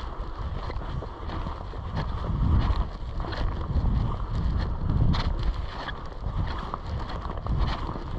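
Wind buffeting the microphone in uneven gusts, with scattered short ticks or small splashes above it.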